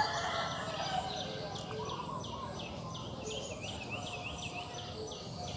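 Birds calling in a field: rapid series of short, high chirps, several a second, with a softer trill lower down. A couple of small knocks come near the start.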